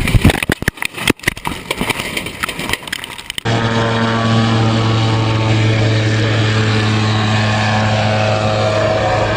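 Loud, irregular knocks and crackles for about three seconds, then an abrupt change to a steady, even drone of a propeller aircraft engine running.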